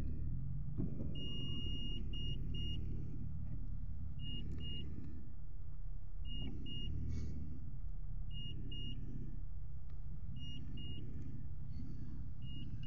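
Steady low rumble inside a car driving through shallow water over the road. A dashboard warning chime gives one longer beep about a second in, then keeps sounding pairs of short high beeps about every two seconds.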